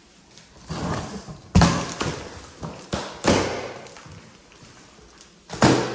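Cardboard box being pulled open by hand, flaps dragged back and the box knocked: a few sudden thumps, the sharpest about a second and a half in and another near the end, with scraping and rustling of cardboard between them.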